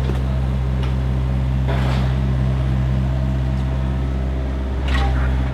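Heavy machinery's diesel engine running steadily, a low even drone that swells louder briefly near the end.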